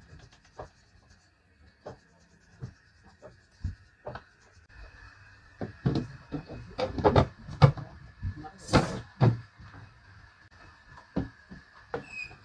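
Wooden knocks and clatter from a harmonium's wooden case and boards being handled: scattered knocks at first, then a louder run of knocks in the middle with one brief scrape.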